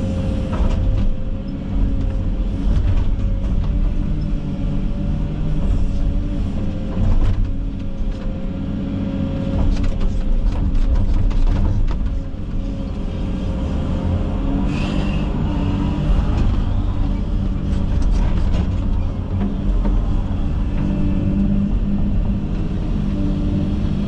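Komatsu 360 excavator's diesel engine running steadily under working load, with a steady whine for the first half or so, as the bucket and thumb break through thick brush, in scattered sharp cracks and snaps, several close together about ten seconds in.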